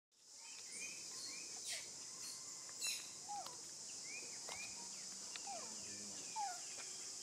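Outdoor ambience of a steady high insect drone with birds calling over it: short arched chirps repeated many times and a few lower falling notes. The sound drops out for a moment at the start and fades back in.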